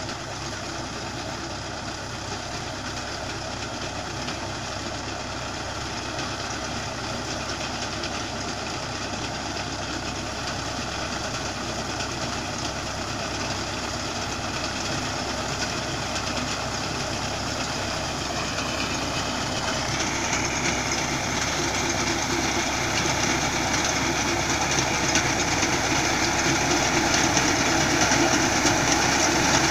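Mahindra tractor's diesel engine running under load while its front-mounted reaper cuts standing rice. The sound grows steadily louder as the machine approaches, and a hissing, higher-pitched part comes in about two-thirds of the way through.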